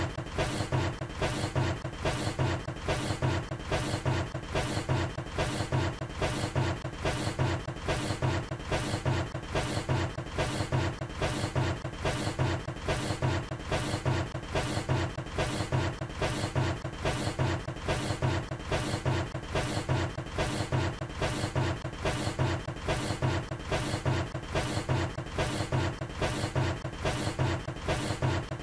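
A steady, evenly repeating pulsing sound, a little over one beat a second, heaviest in the low range.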